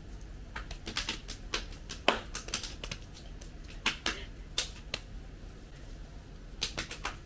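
Two people clapping their hands in quick, uneven runs of sharp claps, a playful back-and-forth with each trying to get the last clap.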